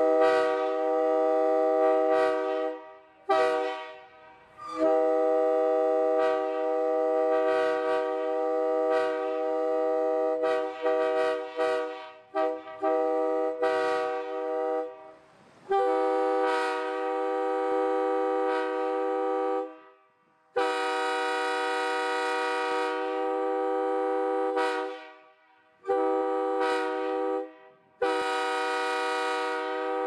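Nathan Airchime K3-series three-chime locomotive air horn blown in a string of blasts, some short and some held for several seconds, each a steady chord. It sounds first with its #3 bell and later with a 4A bell in its place.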